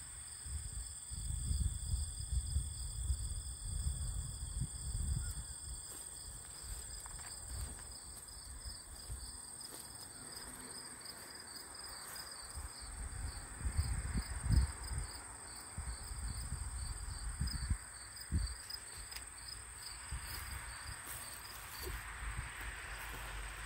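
Insects chirping in the summer grass: a steady high buzz over a regular pulsing chirp that fades out near the end. Irregular low rumbles of wind buffet the microphone.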